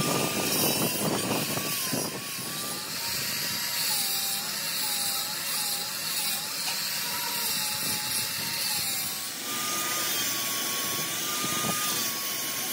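Handheld angle grinder grinding the edge of a steel rickshaw wheel rim, a steady motor whine over a harsh grinding hiss. The whine drops lower for several seconds in the middle, then rises again.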